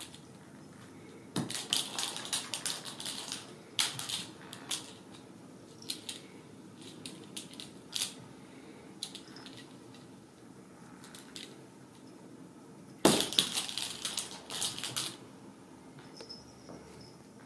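Kittens playing with a feather wand toy: bursts of rapid clicking and rustling clatter. A first cluster comes soon after the start, and the loudest comes about two-thirds through, with scattered single clicks between.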